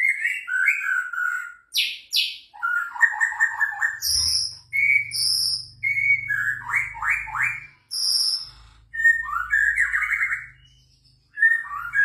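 White-rumped shama (murai batu) singing a fast, varied, chattering song. Clear whistled notes alternate with rapid trills in short phrases, separated by brief pauses.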